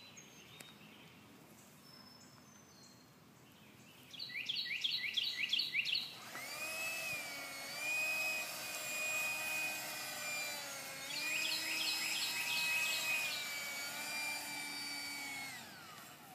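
Electronic sound effects from a battery-powered toy gun: a run of quick falling zaps about four seconds in, then a steady electronic whirr that wavers in pitch for about ten seconds, with a second run of zaps over it partway through. Faint bird chirps can be heard before the toy starts.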